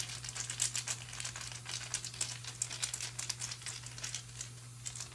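Hand rummaging in a small bag of rune stones: a rustle of cloth with many small, irregular clicks as the stones knock together, stopping near the end.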